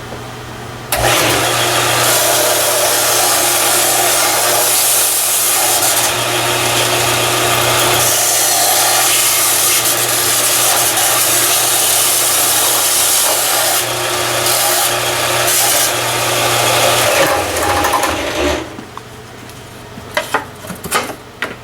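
Power tool running against wood, a steady motor hum under a loud rasping, as it evens out a recess cut into the underside of a wooden table saw insert. It starts about a second in and winds down after about seventeen seconds, followed by a few light knocks.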